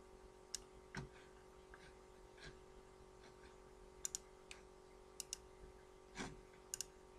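Faint computer mouse clicks, about ten of them scattered irregularly, several in quick pairs, over a faint steady hum.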